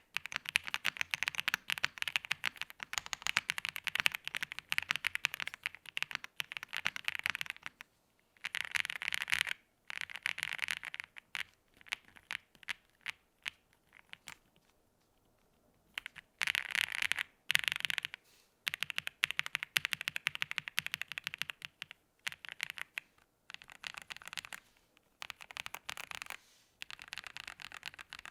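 Typing on an AM Compact Touch (65 Less) mechanical keyboard with Icy Silver linear switches, stock 8-Bit keycaps, an FR4 plate and an aluminium case: quick runs of key clacks in bursts, with short breaks and one longer pause of about four seconds a third of the way through.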